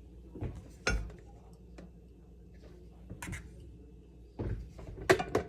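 Kitchenware being handled: a few separate knocks and clinks, with a quick cluster of them near the end, over a low steady hum.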